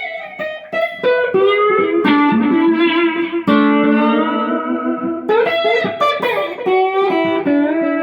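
Electric guitar (a Telecaster with Dynasonic pickups) played through a Krinard-modified Bell & Howell Filmosound valve amplifier with EL84 output valves: a phrase of picked notes, some sliding in pitch, with several notes ringing together for a while in the middle.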